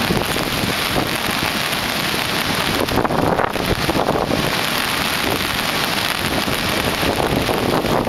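A river in flash flood: a steady, loud rush of fast, muddy water pouring over a boulder-strewn bed.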